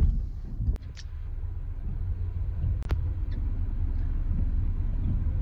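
Low, steady rumble inside the cab of a moving truck, slowly growing louder, with a few faint clicks about a second in and again near three seconds.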